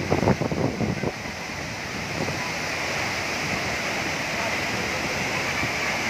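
A tall waterfall pouring into its plunge pool, a steady rushing roar of falling water. A few short louder sounds cut in during the first second.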